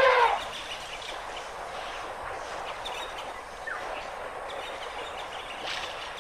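Steady outdoor noise with a few faint bird chirps. It opens with the tail of a loud pitched call that cuts off a fraction of a second in.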